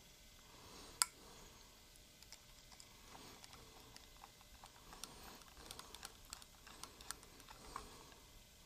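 Faint clicks and light taps of a golf cart's metal carburetor and its small parts being handled, with one sharper click about a second in and a quick run of small clicks over the last few seconds.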